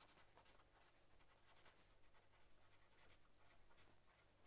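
Faint scratching of a pen writing on paper, in short irregular strokes, over a low steady hum.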